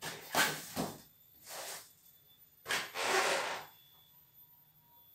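Styrofoam packing and cardboard box flaps rubbing and scraping as packing pieces are pulled out of a box, in a few short bursts, the longest about three seconds in.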